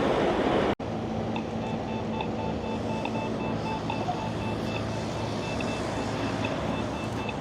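Steady rumble and hum of a moving vehicle, cut off briefly about a second in, with light background music and faint repeating tones.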